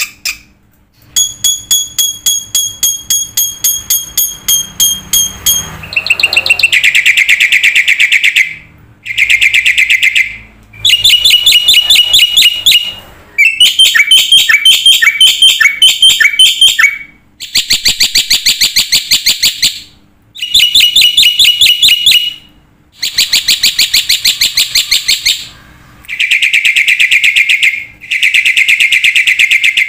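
A bird calling loudly in long trains of rapid, evenly repeated notes, each train lasting a few seconds, with short pauses between.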